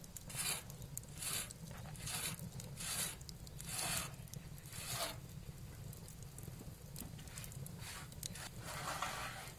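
Rhythmic scraping strokes, about one a second, stopping about halfway through, then one longer scrape near the end, over a steady low hum.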